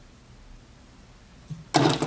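Quiet room tone, then a short, loud, breathy burst near the end.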